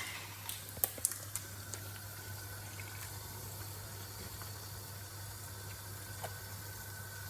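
Chicken curry simmering in its pot over a steady low hum, with a few light clicks in the first second and a half.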